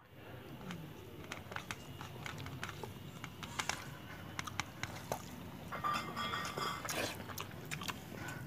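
Eating rice by hand: chewing and mouth sounds, with scattered small clicks of fingers working rice on a steel plate, and a brief higher-pitched sound about six seconds in.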